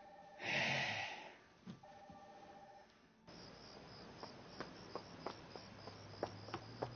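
Telephone ringing with a warbling electronic trill, in two rings with a short burst of noise between them. Then, from about three seconds in, crickets chirp steadily, about three chirps a second, while footsteps click on pavement.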